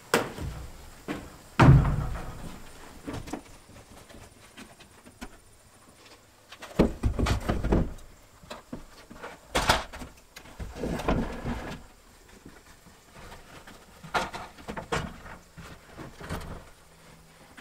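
Wooden roof trusses and 2x4 framing lumber knocking and thudding as they are handled and set against the framing: irregular sharp knocks, a heavy thud about two seconds in, a cluster of low thuds around seven seconds, and more knocks later.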